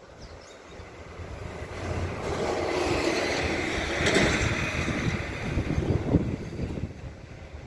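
A road vehicle driving past, its engine and tyre noise rattling as it swells, peaks, and fades away over several seconds.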